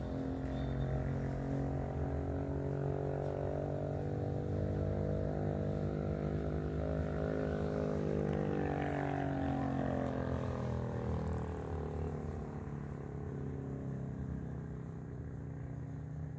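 A motor vehicle's engine passing by: its even drone builds to a peak about halfway through, then drops in pitch and fades as it moves away.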